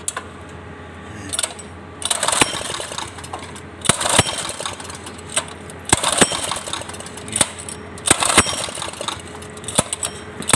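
Single-cylinder 196cc Briggs & Stratton small engine running, swelling louder and falling back about every two seconds, with sharp metallic clicks on the swells.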